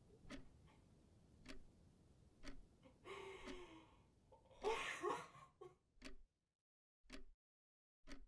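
An analogue alarm clock ticking faintly, about one tick a second. A louder breathy rush of noise comes about three to five seconds in, and the background hush cuts out about six seconds in, leaving only the ticks.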